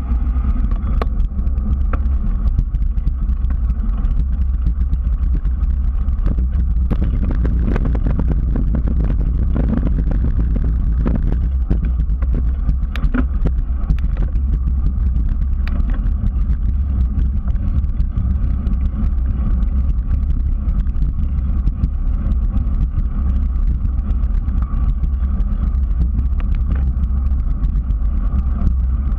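A bicycle riding along a paved trail, heard from a bike-mounted GoPro: steady low wind buffeting on the microphone over tyre rumble on the pavement, with scattered clicks and rattles between about seven and sixteen seconds in.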